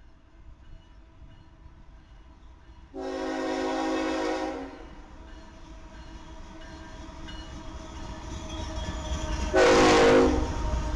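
Multi-chime air horn of a BNSF freight train's lead diesel locomotive sounding two blasts, a longer one about three seconds in and a shorter, louder one near the end, over the low rumble of the approaching locomotives that grows as they pass close by.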